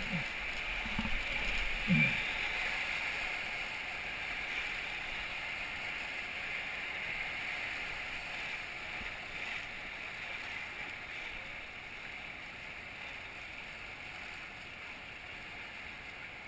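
Whitewater rapids rushing around an inflatable raft: a steady hiss of churning river water that slowly grows quieter as the raft moves into calmer water. A brief low sound stands out about two seconds in.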